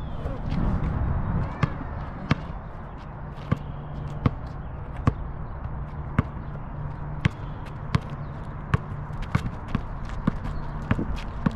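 A basketball bouncing on an asphalt court: separate thuds about a second apart, then dribbling that gets quicker toward the end. A low rumble sits under the first second or so.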